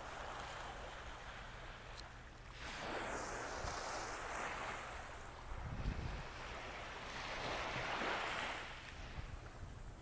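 Small waves lapping onto a sandy beach, the wash of each swelling and fading, three times. A low thump about six seconds in.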